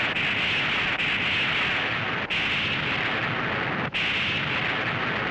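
Film explosion sound effect: a continuous loud blast-and-rush noise from a strike landing close by. It cuts out and starts again twice, a little over two and about four seconds in.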